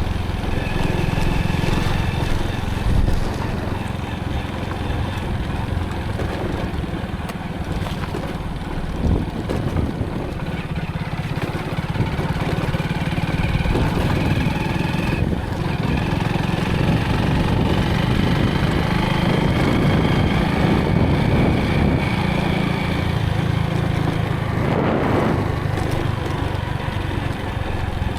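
Motorcycle engine running steadily while riding, with road noise around it.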